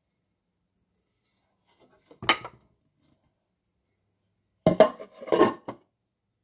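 Tableware handled on a table: a short clatter about two seconds in, then a grey plastic cover set down over a ceramic plate with a quick run of knocks and scrapes near the end.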